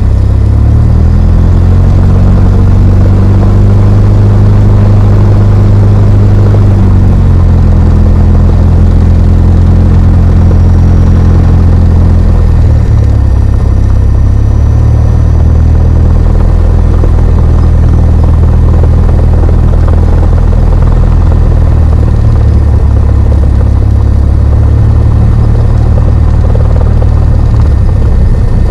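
Small single-engine propeller plane's piston engine running, heard from inside the cockpit while taxiing. The engine note rises about a second in, drops back around seven seconds, and shifts again a few times as the power is changed.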